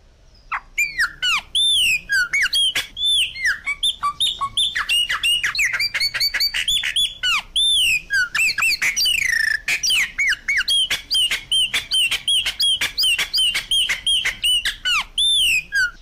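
Giant cowbird (iraúna-grande) calling: a fast, continuous run of sharp clicks and arched, sliding whistled notes. It starts about half a second in and stops suddenly just before the end.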